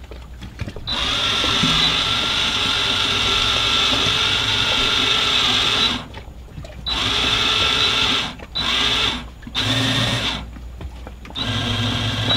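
Electric drive motor of a wheel-mounted autopilot whining as it turns the sailboat's steering wheel, switched on and being tried out. It starts about a second in and runs for about five seconds, then stops and starts again several times in shorter runs.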